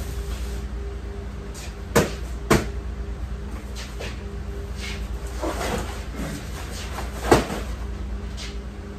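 Cardboard boxes being handled and set down on metal shelving: three sharp knocks, two close together about two seconds in and one more about seven seconds in, with cardboard scraping and rustling between them. Under it runs the steady low hum of the walk-in cooler's refrigeration unit.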